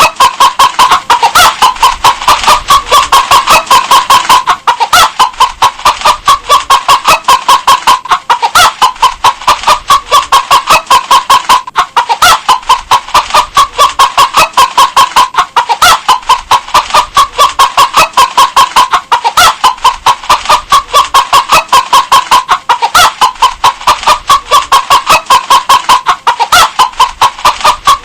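Hen clucking continuously in a fast, even run of short clucks, about four a second.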